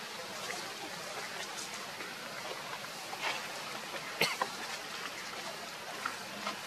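Dry leaf litter crackling and rustling under macaques moving on the forest floor, over a steady outdoor hiss, with a sharp click a little past four seconds in.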